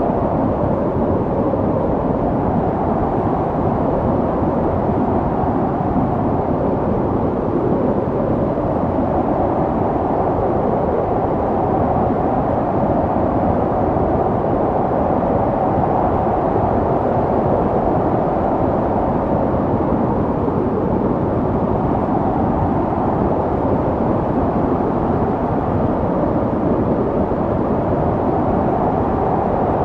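Snow storm wind blowing steadily: a dense, even rush that is deep and dull, with no gusts or breaks.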